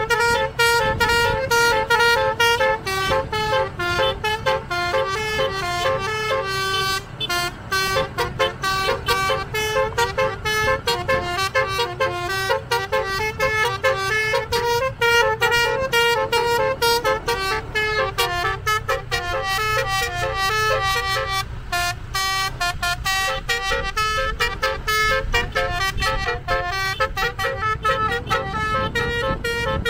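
Basuri horn on a coach bus playing a quick melody of stepping notes, over the low rumble of the bus's engine.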